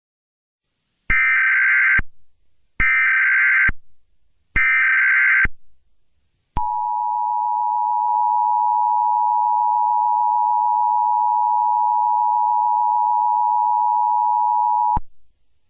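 Emergency Alert System header: three short bursts of digital data tones, each just under a second, followed by the two-tone EAS attention signal, a steady dissonant chord held for about eight seconds before cutting off. It announces that an emergency message follows.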